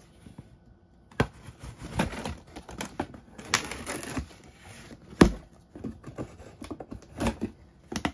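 A shipping box being opened by hand: irregular clicks, scrapes and rustles of tape and flaps, with a sharp knock about five seconds in.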